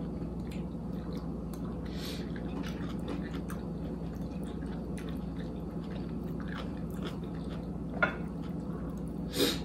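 Chewing and mouth sounds of someone eating, with scattered soft clicks and two louder short smacks or clinks near the end, over a steady low room hum.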